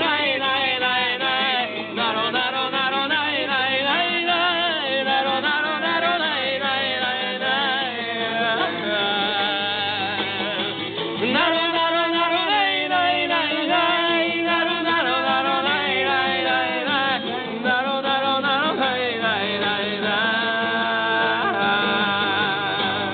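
A song sung to acoustic guitar, the voices holding and bending long sung notes with no clear words.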